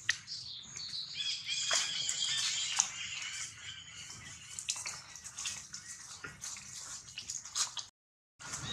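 Baby long-tailed macaque giving high-pitched squealing cries for about two seconds, starting about a second in, over scattered clicks and rustles of dry leaf litter. The sound cuts out briefly near the end.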